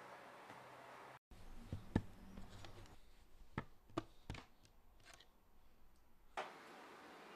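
Eyeglasses picked up by hand from a wooden bedside table: a few light, separate clicks and knocks as the frames and fingers touch the wood.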